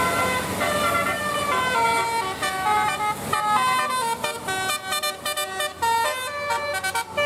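Bus telolet musical horn playing a melody: a run of clear, stepped horn notes, held notes at first, then shorter, quicker notes from about three seconds in.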